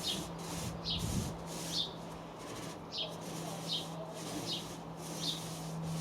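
Small paint roller being worked back and forth: a rhythmic swishing with a short high squeak on each stroke, about one every three-quarters of a second.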